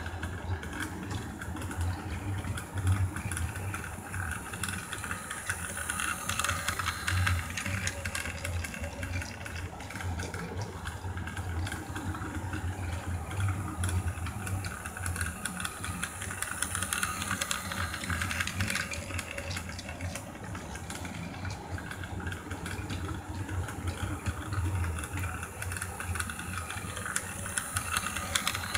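Plarail battery-powered toy train running around a plastic track loop: a steady motor-and-gear whir with clicks and rattle from the wheels on the track, swelling louder and softer several times as the train comes close and moves away.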